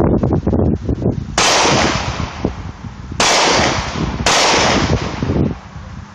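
Three pistol shots from a Glock 30SF in .45 ACP, the first about a second and a half in and the last two about a second apart. Each shot trails off in a long echo.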